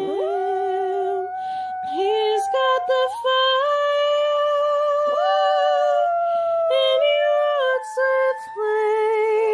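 Chihuahua howling in long, high held notes that slide up and step between pitches, like singing.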